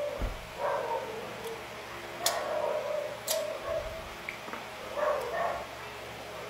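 Eating sounds from someone sucking and slurping the soft, sticky pulp of a marang fruit off its seeds, in short squeaky bursts. Two sharp clicks come about two and three seconds in.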